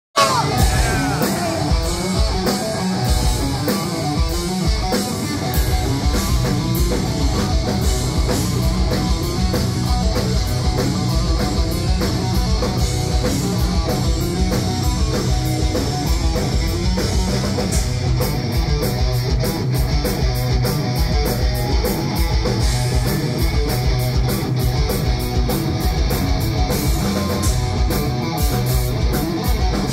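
Live heavy metal band heard from the crowd: a lead electric guitar solo over rhythm guitar, bass and a driving drum kit with fast kick drum and cymbals.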